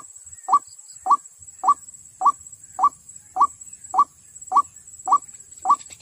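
White-breasted waterhen (ruak-ruak) lure call, a short rising note repeated evenly a little under twice a second, with a thin steady high tone behind it.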